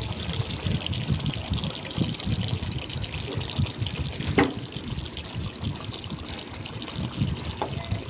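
Fish curry bubbling as it boils in a pan, with a wooden spatula moving through the gravy. A single sharp clink comes about four and a half seconds in.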